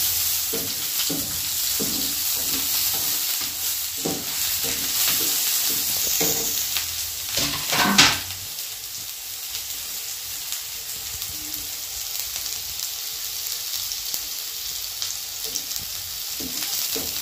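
Chopped red onion sizzling in hot oil in a nonstick frying pan, stirred with a plastic slotted spatula that scrapes across the pan. About eight seconds in there is a louder knock of the spatula on the pan, and after it the stirring mostly stops and the onion sizzles steadily and more quietly.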